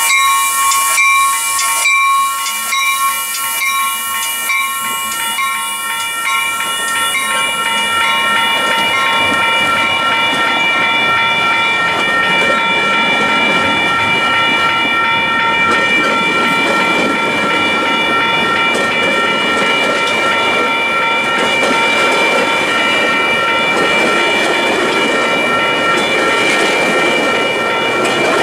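Metra bi-level commuter train rolling slowly past, pulling out: a steady high-pitched whine with hiss, and clicking during the first several seconds. The rumble of the pushing diesel locomotive builds near the end.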